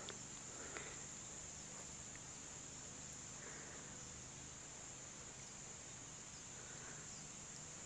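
Faint, steady, high-pitched drone of insects such as crickets, with a few faint soft sounds over it.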